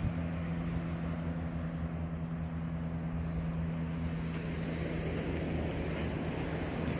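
An engine hums steadily over a hiss of background noise.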